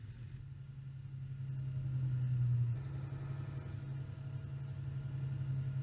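Heavy tractor engine idling with a steady low hum.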